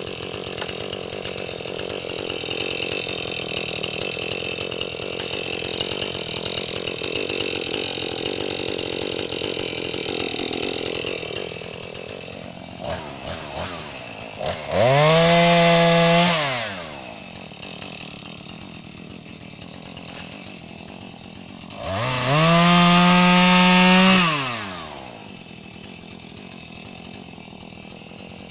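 Jonsered two-stroke chainsaw cutting through an oak log for about the first eleven seconds, then dropping to idle. It is then revved to full throttle twice, each time for about two seconds, falling back to idle after each.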